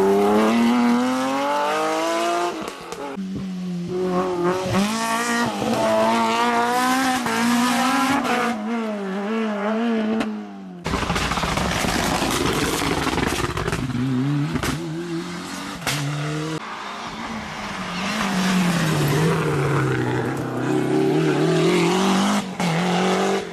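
Historic rally cars driven hard, engines revving high and dropping repeatedly through gear changes. About eleven seconds in the sound switches abruptly to a second car.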